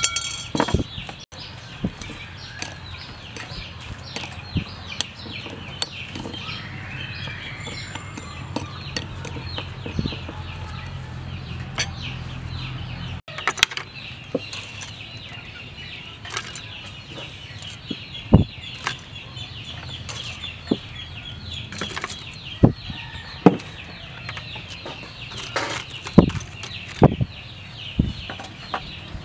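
Outdoor rural ambience: chickens clucking over a steady high-pitched hiss with fast fine ticking. Scattered light knocks and clicks come more often in the second half.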